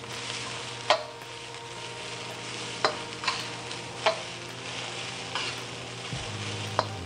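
Fried rice with shrimp, egg and vegetables sizzling steadily in a hot steel wok as a metal spatula stirs and tosses it. The spatula strikes the wok with a sharp clink every second or so, at an uneven pace.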